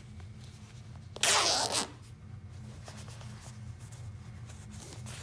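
Nylon coat zipper run once along its teeth in a quick pull lasting about half a second, about a second in, with a faint steady low hum underneath. The slider has just been squeezed tighter with pliers, and the zipper now closes without gapping.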